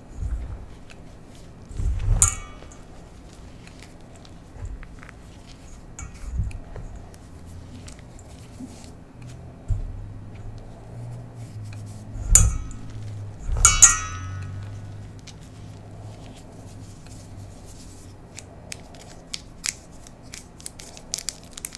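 Hands crumbling and squeezing pink gym chalk in a stainless steel bowl, with soft crunching of the chalk. Three knocks against the bowl ring out metallically, one about two seconds in and two close together past the middle. Fine crackles of chalk being crushed come near the end.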